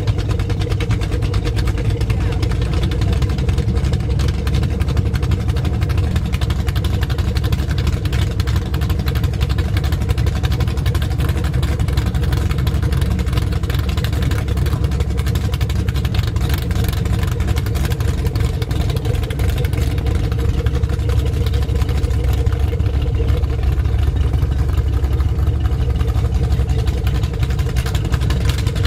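Motorboat engine idling steadily: a deep, even rumble with a constant hum.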